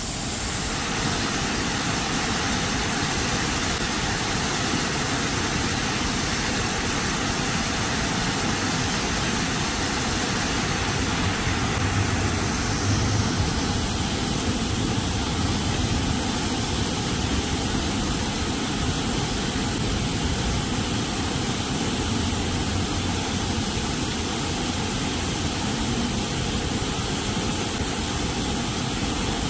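Steady traffic noise from a busy city road with passing cars and trams, mixed with the splash of fountain water. A heavier low rumble of a passing vehicle swells briefly about twelve seconds in.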